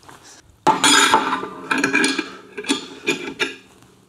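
A sudden loud metallic crack with brief ringing, about a second in, as a hammer tap on a bolt-type case splitter makes the tightly press-fitted aluminium crankcase halves of an Aermacchi 350 engine let go. Several lighter knocks and rattles follow.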